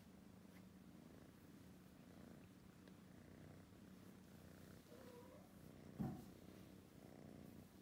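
Tabby kitten purring faintly and steadily while its head is stroked, with a short soft thump about six seconds in.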